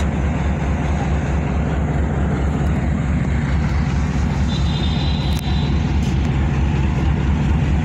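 Steady low engine drone from the stationary train idling at the platform, with a short high-pitched tone about halfway through.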